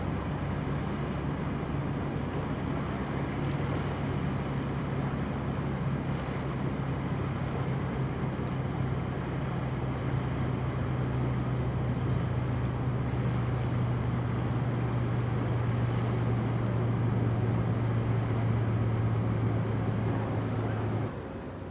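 Low, steady engine drone of a passing container ship, with wind noise on the microphone. The drone stops abruptly near the end.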